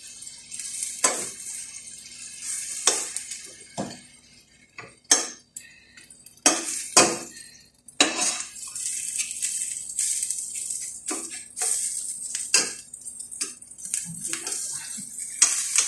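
Metal spoon knocking and scraping against a stainless-steel frying pan as cooked fava beans are stirred and mashed, in irregular clanks. A high frying sizzle runs between them, strongest in the middle of the stretch.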